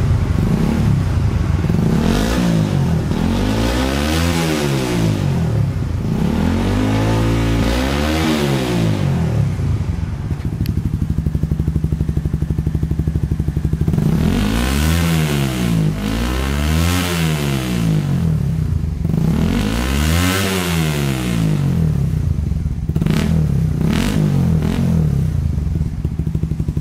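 Motorcycle engine revved sharply about five times, up to around 11,000 rpm, falling back to idle between revs, with a couple of smaller blips near the end. It is breathing through an aftermarket carbon slip-on muffler with a honeycomb dB killer in the neck and an open outlet.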